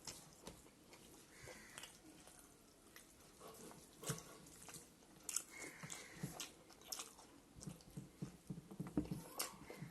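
Quiet chewing and mouth sounds of a person eating rice with buffalo meat and greens: irregular wet clicks and smacks, coming thicker in the second half.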